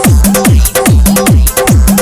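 Electronic dance music from a DJ mix: a heavy bass kick that sweeps down in pitch on every beat, about two beats a second, with sharp hi-hat ticks and a looping synth line above.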